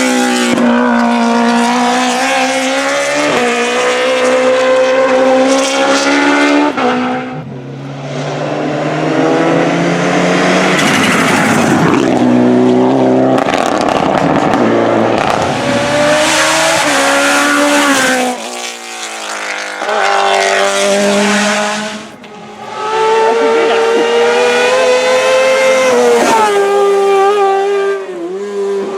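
Race car engines at full throttle, one car after another, revving up and dropping back as they change gear. The sound breaks and changes between cars about a quarter of the way in and again past halfway.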